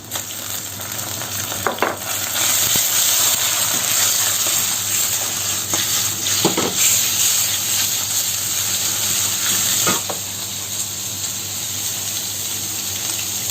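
Chicken pieces sizzling as they are stir-fried in hot sesame oil in a wok with vegetables. The sizzle grows louder about two seconds in and eases a little near the end, and the wok is stirred, with three short ringing scrapes.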